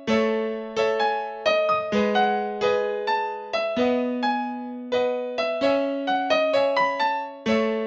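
Background music: a gentle piano melody, a new note struck about every half second over held lower notes.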